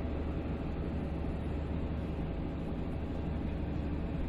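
Steady machinery drone: a low, even hum under a constant hiss, with no breaks.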